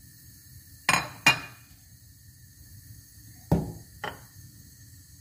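Kitchenware clinking and knocking against a cooking pot: two sharp clinks close together about a second in, then a heavier knock about three and a half seconds in and a lighter one half a second later.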